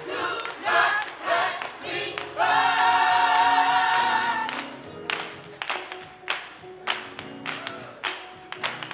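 A choir singing with music. Short sung phrases lead into one loud chord held for about two seconds. The voices then fall back under music with a regular percussive beat.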